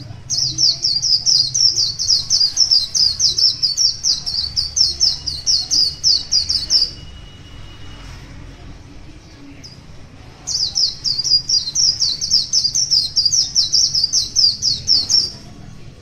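A caged white-eye singing two long bouts of rapid, high twittering notes, each several seconds long, with a few seconds' pause between them.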